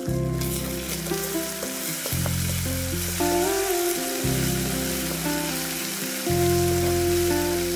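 Hot oil sizzling in a wok as dried red chillies and a chilli paste are stirred with a wooden spatula; the sizzle starts just after the beginning. Background music with steady notes and a bass line plays throughout.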